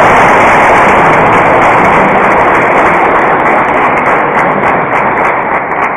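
A crowd in a hall clapping and cheering, so loud that it overloads the recording into a steady, distorted wash of noise.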